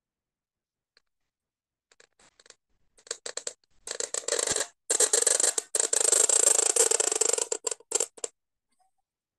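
Reed pen (qalam) nib scratching across paper as it draws the long curved stroke of the letter sad. A few short scratches begin about two seconds in. Then comes a long, dense scratch with one brief break, which stops just after eight seconds.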